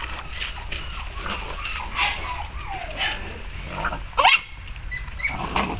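Short animal calls, the loudest a sharp rising yelp about four seconds in.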